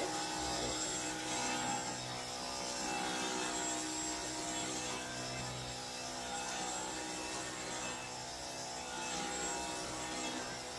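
Dyson V15 cordless stick vacuum running steadily with a high motor whine, pushed back and forth over a carpet to pick up debris.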